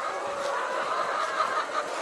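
A flock of chickens clucking steadily, many calls overlapping.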